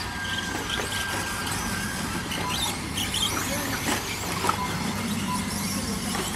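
Radio-controlled short-course trucks racing, their motors giving short high whines as they speed up and slow down around the track.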